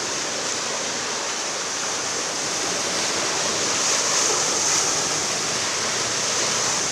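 Car tyres ploughing through a flooded street, a steady rushing splash of water that swells a little about four seconds in as a car passes close.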